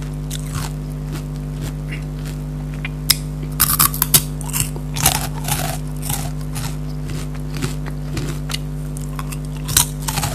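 Crunchy Kurkure corn snacks being bitten and chewed close to the microphone, with a cluster of loud crunches about three to four seconds in and another near the end, softer chewing crackles between, over a steady low hum.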